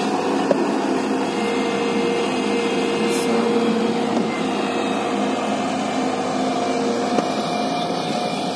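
JCB tracked excavator's diesel engine running steadily with a constant hum as the machine swings and works its boom and bucket in sand, with a couple of faint clicks.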